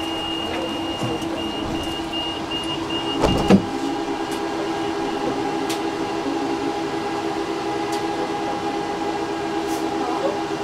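Tram standing at a stop, its equipment giving a steady electrical hum. A high electronic beep sounds steadily, then pulses a few times a second, typical of a door-closing warning. It is cut off about three seconds in by a loud thud, likely the doors shutting.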